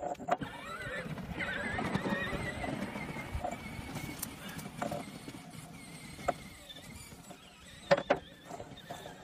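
Metal clinks and knocks as the steel splitting wedge is fitted to the threaded end of a homemade log splitter's hydraulic ram, with two sharp knocks the loudest, one near the start and one near the end. A thin, wavering squeal runs through much of it, strongest early on and fading later.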